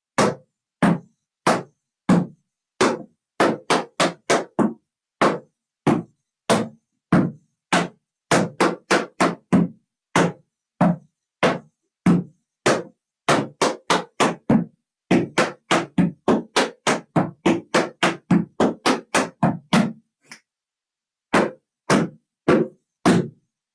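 Tap shoes' metal taps striking a wooden tap board as a combination of steps, heels, shuffles, paradiddles and stamps is danced. The sharp taps come in an uneven rhythm, with a short pause about twenty seconds in.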